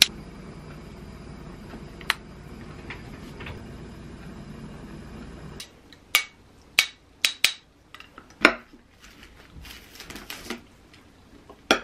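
A steady low hum with a couple of clicks, which stops about halfway through. Then a metal knife and spoon clink and scrape against a ceramic plate while cutting a folded omelette over rice, about a dozen sharp clinks.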